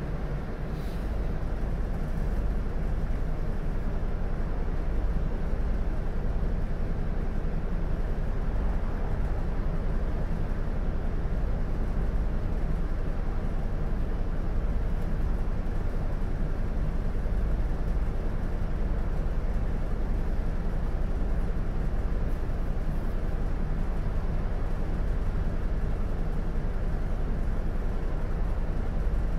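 Isuzu Erga city bus's diesel engine idling steadily while the bus stands still, heard from inside the passenger cabin.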